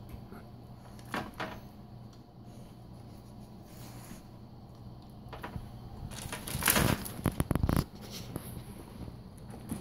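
Belgian Malinois eating a piece of raw chicken off paper: quiet mouthing with a few clicks about a second in, then a louder run of chewing and crackling from about six seconds in, over a steady low hum.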